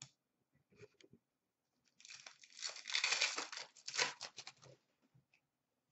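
Upper Deck hockey card pack wrapper being torn open and crinkled by hand: a crackling tear that starts about two seconds in and lasts around three seconds, after a light click at the start.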